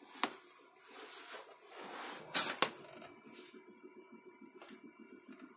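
Creality CR-10 3D printer running, its stepper motors buzzing as the print head moves over a PLA print, over a steady faint whine. A few sharp clicks and a short hissing burst stand out, the loudest about two and a half seconds in.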